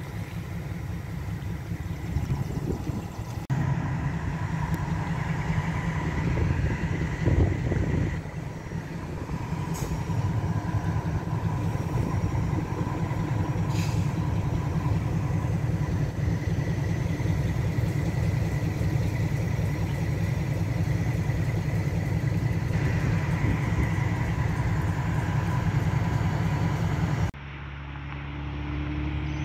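Train's diesel locomotive running with a steady low drone as it moves, with faint steady higher tones over it. The sound changes abruptly about three and a half seconds in and again near the end.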